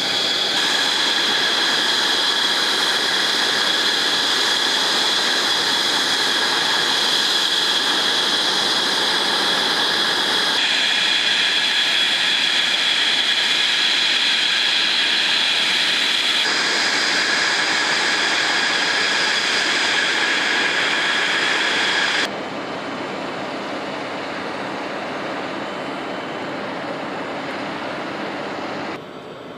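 Jet aircraft engines running: a steady high-pitched whine over a rushing roar, which shifts abruptly several times and drops noticeably in level about two-thirds of the way through.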